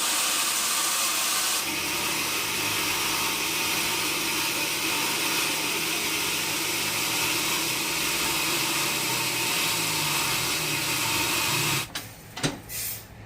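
Sawmill saw blade cutting through a log with a loud, steady hissing noise that shifts slightly about two seconds in and then stops abruptly near the end, followed by a single sharp knock.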